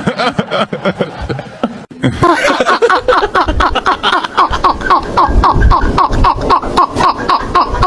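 Someone laughing hard, starting about two seconds in as a long run of quick, even bursts of about four a second.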